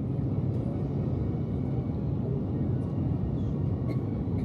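Steady low rumble of an Airbus A350's Rolls-Royce Trent XWB engines and the airflow, heard inside the passenger cabin on final approach.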